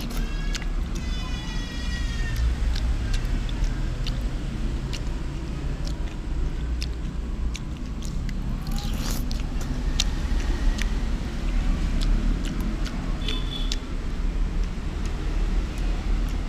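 A steady low rumble with scattered light clicks and taps, and a short high squeal that rises about a second in.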